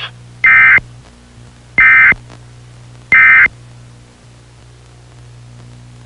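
Three short bursts of Emergency Alert System digital data tones, the end-of-message signal that closes an EAS alert. Each burst is a harsh, buzzy warble lasting about a third of a second, about 1.3 s apart, with a faint steady low hum beneath.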